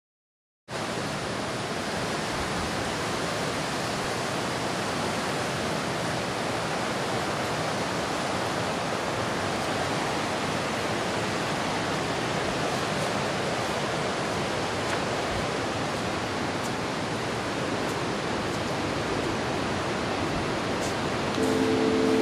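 A steady, even rushing noise that starts abruptly and holds without swells. Organ-like music chords come in near the end.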